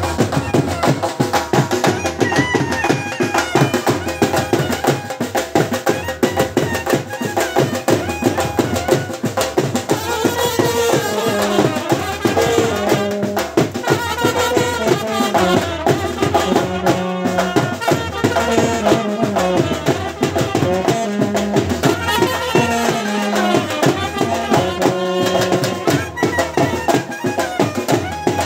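Live Himachali folk dance music: trumpets play the melody over a fast, steady beat on dhol drums.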